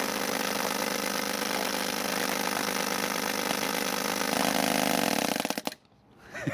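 Paintball gun firing a long rapid-fire burst, a dense continuous buzz of shots that cuts off abruptly near the end.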